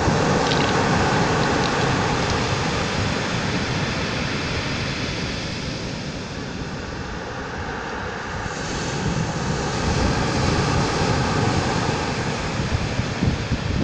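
Surf washing over a pebble beach: a steady rushing that eases around the middle and swells again, with a faint steady drone underneath.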